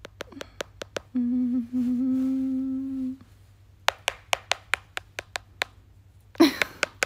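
A woman hums one steady note for about two seconds. Quick runs of sharp clicks come before and after the hum.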